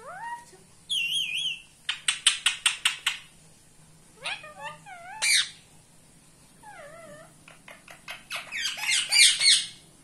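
Rose-ringed parakeets (Indian ringnecks) calling in several bursts. Warbling, wavering calls alternate with rapid runs of short, harsh screeches; the loudest run comes near the end.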